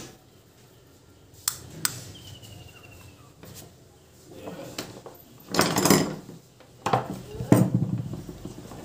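Hard metal tools and parts clinking and knocking as they are handled: two sharp clicks about a second and a half in, a longer rattling clatter a little after halfway, then two more knocks.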